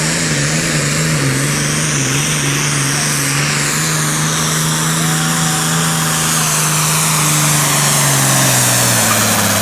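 Turbocharged diesel Super Farm pulling tractor at full throttle pulling the sled, the engine note wavering at first and then held steady, with a high whistle over it. The engine note drops near the end as the run finishes.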